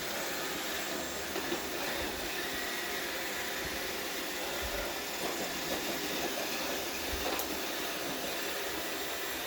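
iRobot Roomba robot vacuum running steadily across the floor, an even whirring hum with a few faint clicks.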